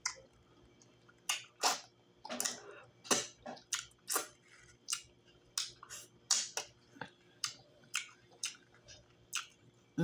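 Close-miked wet chewing and lip smacks while eating fish in ogbono soup: a string of short, irregular smacks, about two a second.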